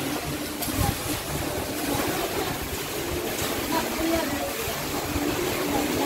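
Swimming-pool ambience: water splashing and sloshing, with the voices of distant bathers.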